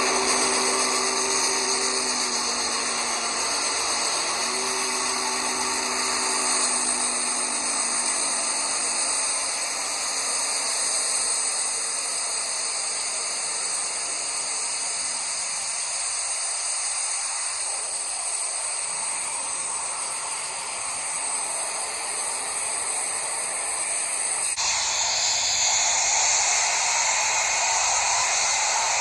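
Steam locomotive sound: a chime whistle blown in two long blasts, then a steady hiss of steam.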